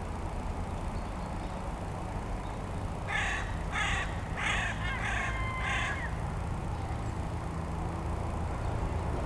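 A crow cawing five times in quick succession, the calls about two-thirds of a second apart, starting about three seconds in, over a steady low rumble.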